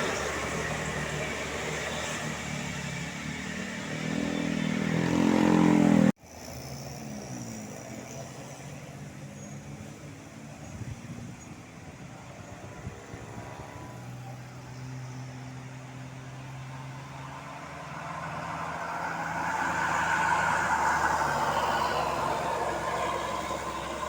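Tour bus engines labouring up a hill. The first bus revs with its pitch rising until the sound cuts off abruptly about six seconds in, and later another heavy vehicle approaches and passes, louder toward the end.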